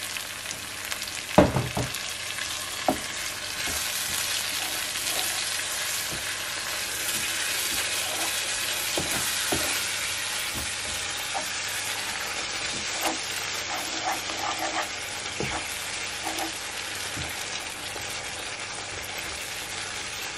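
Tomato-and-spice masala sizzling in a non-stick frying pan, with a little water just added so the masala cooks through. It is stirred with a wooden spatula that knocks against the pan now and then, hardest about one and a half seconds in.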